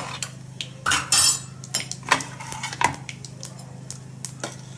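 Spice seeds crackling and popping in hot oil in a small steel kadai during a tempering: irregular sharp pops and clicks against the pan, with a short spurt of sizzle about a second in, over a low steady hum.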